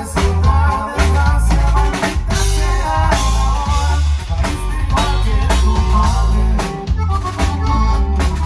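A band playing an instrumental passage at a sound check: a drum kit beating steady strikes over a heavy bass line, with melodic instruments on top.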